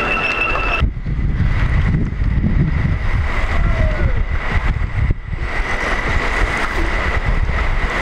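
Electric rental scooters riding in a crowd, with a steady high motor whine running through. Heavy wind rumble on the microphone starts abruptly about a second in.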